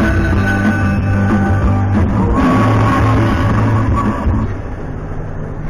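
Video slot machine's bonus-wheel music playing loudly, with a brighter win effect joining about two and a half seconds in as a small prize is awarded. It drops in level near the end.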